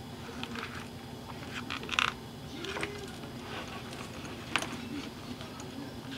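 A leather wallet being handled, its pockets and flaps flexed and brushed by fingers in light rustles and small taps. A sharper click comes about two seconds in and another about four and a half seconds in.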